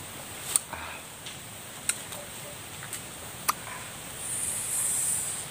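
Mouth sounds from eating sour green lime: a few sharp wet clicks and smacks at irregular intervals while chewing, then a high hiss lasting about a second near the end.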